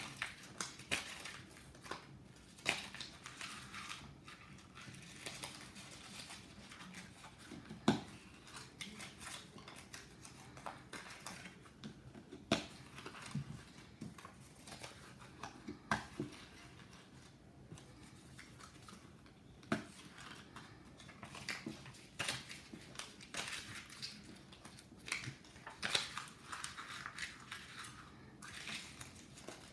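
Small paper squares rustling and crinkling as hands pick them up and push them down onto a metal ticket spike, with scattered sharp clicks.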